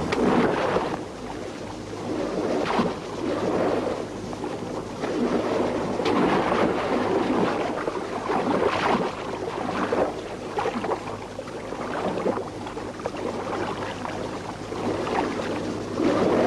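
Sea and wind rushing in uneven surges every second or two, with a faint steady low hum underneath.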